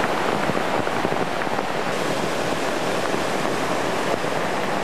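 Muddy floodwater of a river swollen by torrential rain, rushing and churning in a steady, noisy wash.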